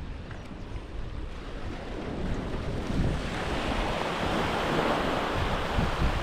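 A sea wave breaking and washing up the shore, swelling about halfway through and easing near the end, with wind buffeting the microphone throughout.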